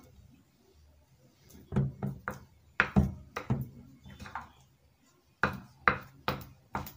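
A hand beating sticky puff puff batter in a glass mixing bowl: a run of wet slaps and knocks, about two or three a second. They come in two spells, the first starting after a quiet second and a half and the second near the end, with a short lull between.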